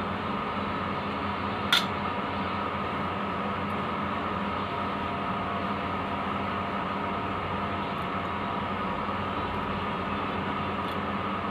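Steady mechanical hum with a hiss, even throughout, and one sharp click a little under two seconds in.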